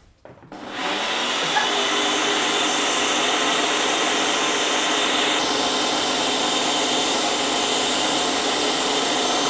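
Single-serve personal blender motor starts about half a second in and runs steadily at full speed, blending a light load of banana, cocoa powder and milk into a smoothie.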